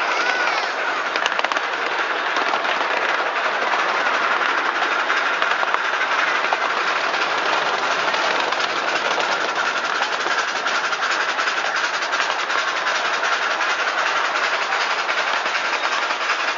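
Ride-on miniature railway train in motion: a steady running noise of its small steel wheels rolling on the rails.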